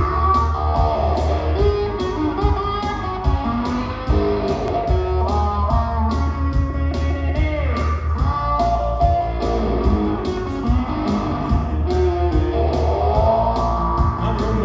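Electric guitar playing a blues instrumental intro, melodic picked lines over a steady low bass and an even beat.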